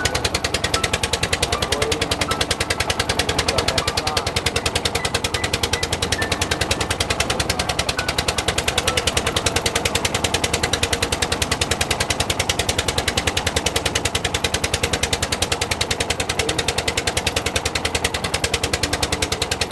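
Fishing boat's engine running steadily, a loud, fast and even chugging beat.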